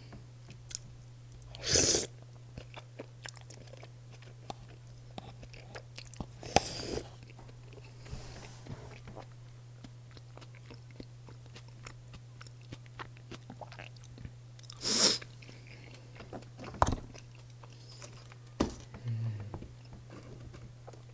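Close-miked chewing of breaded cheese pork cutlet and rosé spaghetti, with small wet clicks throughout and about five louder crunchy bites spread across the stretch. A steady low electrical hum runs underneath.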